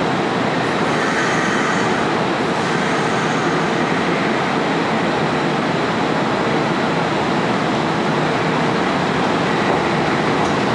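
Kintetsu 'Hakaru-kun' electric track-inspection train standing at an underground station platform: a steady hum and noise with a faint constant tone, and a short hiss from about a second in.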